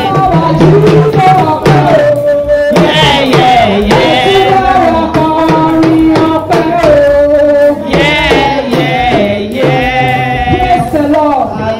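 Music with a singing voice over drums.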